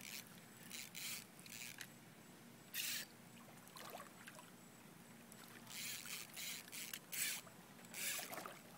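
Hooked American alligator thrashing at the water's surface: a string of short, faint splashes, bunched near the start and again towards the end.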